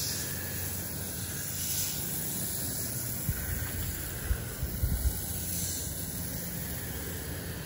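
Soft wash wand spraying a soapy mix onto concrete: a steady hiss of spray over a low steady hum, with a few short low thumps about three to five seconds in.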